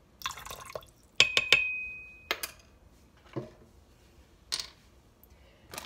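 Vanilla extract tipped from a plastic measuring spoon into milk in a stainless-steel Instant Pot inner pot, a brief trickle, then three quick sharp taps against the steel pot, one leaving a short metallic ring. A few more single light knocks follow.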